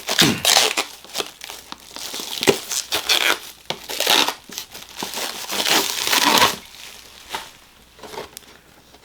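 Plastic or paper wrapping crinkling and crumpling as it is pulled and peeled off a boxed vinyl figure, busy for about six and a half seconds, then a few quieter rustles.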